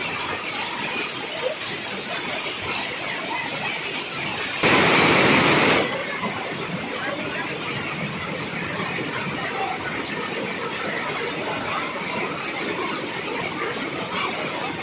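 Waterfall water rushing steadily. About four and a half seconds in there is a louder burst of rushing noise lasting just over a second.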